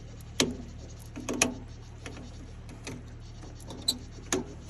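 A handful of sharp, irregular metal clicks and clacks from a booster-box cable clamp being worked onto the backhoe's battery terminal to get it to bite, over a steady low hum. The engine does not crank.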